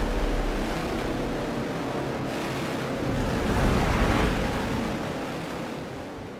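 A steady rushing noise, like wind or surf, that swells about four seconds in and then fades out.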